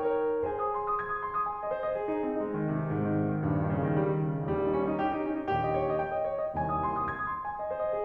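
Background piano music: a solo piano playing gentle, classical-style chords and melody, with lower notes joining in about two seconds in.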